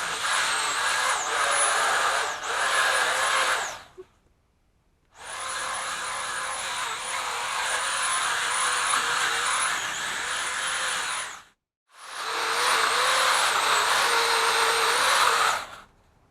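Chainsaw running at high speed and cutting, its high whine dipping briefly as it takes load. It cuts out suddenly about four seconds in, runs again from about five seconds to eleven, and again from about twelve seconds until near the end.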